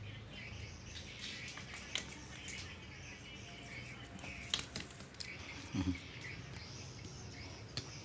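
Faint birds chirping in the background, with a few soft clicks scattered through.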